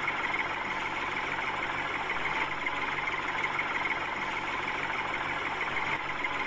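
Small DC motor and plastic gears of a homemade toy tractor running steadily as it drives along, a continuous buzzing whine.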